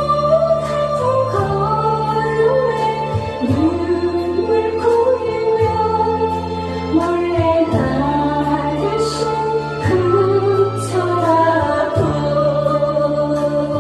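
A woman singing a Korean trot song into a microphone over instrumental backing, with held, wavering notes above a steady bass line that changes every couple of seconds.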